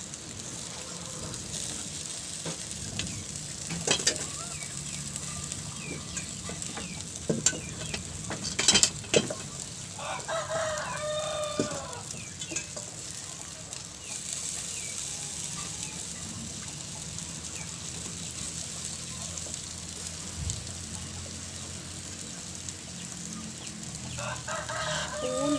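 Skewered squid sizzling on a charcoal grill, a steady hiss with a few sharp clicks. A rooster crows about ten seconds in, and another pitched call comes near the end.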